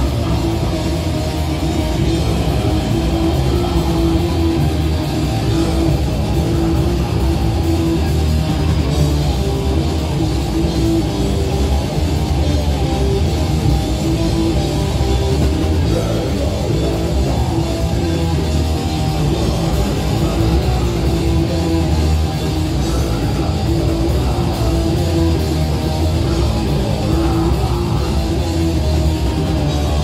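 Live heavy rock band playing loud and without a break: distorted electric guitars over bass and a drum kit.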